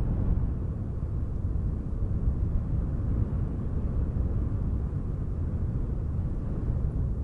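Wind blowing as a steady low rumble that wavers slightly in strength, with no separate events standing out.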